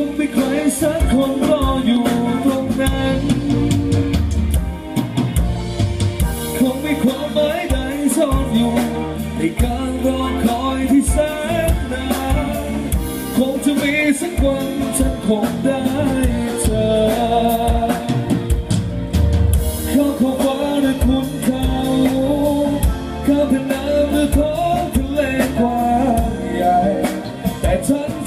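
A live pop-rock band playing through a PA: a drum kit keeping a steady beat, electric guitar, and singing.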